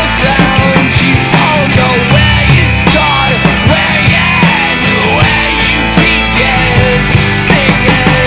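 Rock band playing an instrumental passage without singing: drums striking steadily under a bending lead line.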